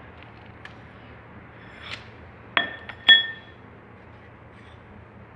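Metal pieces clinking together twice, about half a second apart, each ringing briefly, with a lighter tap between them and a few faint ticks before. A steady low hum runs underneath.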